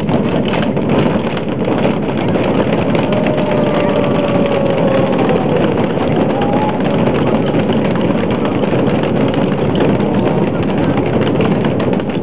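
A giant drum struck by many players with sticks at once, making a dense, continuous rolling rumble with no clear beat.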